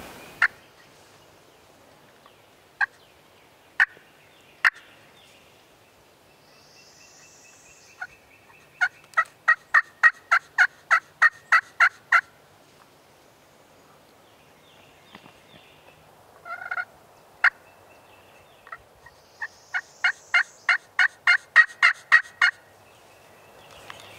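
Turkey yelping: two runs of about a dozen evenly spaced yelps, roughly four a second. A few single sharp notes come before the first run.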